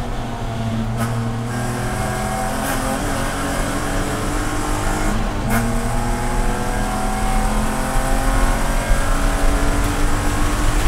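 Inside the cabin of a BMW Spec E46 race car: its straight-six engine pulling at full throttle, the note climbing steadily as speed builds, over road and wind noise.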